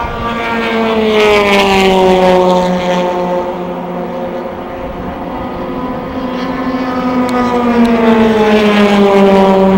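Race car engines at racing speed passing by twice: each pass grows louder, then its engine note drops in pitch as the car goes by, one about a second in and another near the end.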